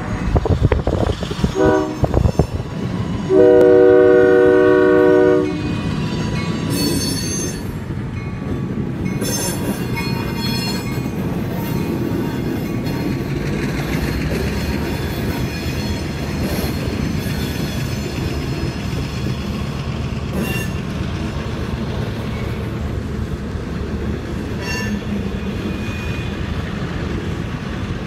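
Locomotive horn sounding a few short blasts, then one long, loud blast that ends about five seconds in. After that, freight cars roll past with a steady rumble and occasional high wheel squeals.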